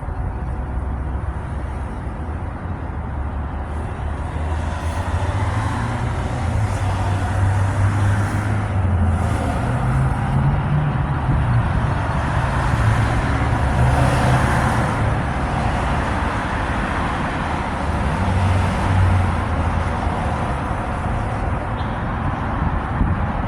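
A motor vehicle's engine and road noise, a continuous low rumble with hiss that grows louder and shifts in pitch from about four seconds in, easing off near the end.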